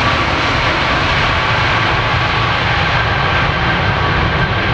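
Boeing 767-300 airliner's jet engines running during the landing rollout, a loud steady roar with a faint high whine on top.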